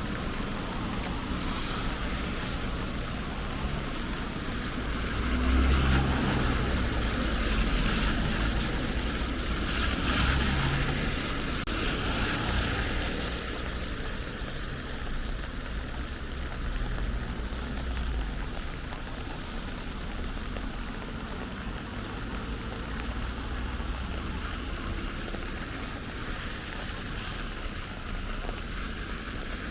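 Steady rain falling, a continuous hiss, with low rumbles swelling up a few times in the first half.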